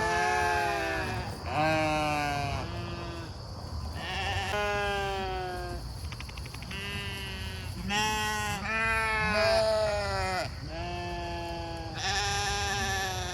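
A flock of sheep bleating over and over, many calls overlapping, as hungry sheep do when calling for their feed.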